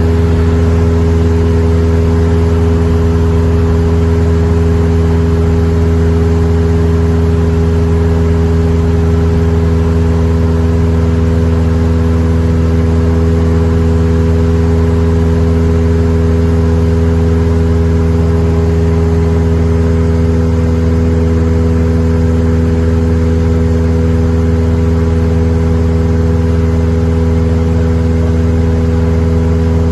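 Cessna 172M's four-cylinder Lycoming O-320 engine and propeller running at a steady speed: a constant loud drone that holds the same pitch throughout.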